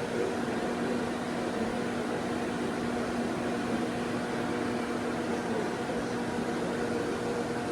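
Handheld hair blow dryer running steadily: a continuous rush of air over a steady motor hum.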